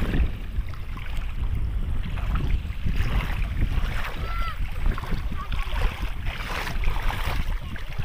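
Wind rumbling on the microphone over sea water washing at the shore, with a brief high chirp about four seconds in.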